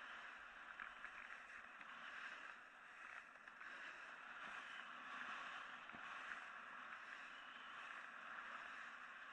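Snowboard sliding and carving over choppy, churned-up snow: a faint, steady hiss that swells and eases a little as the board turns.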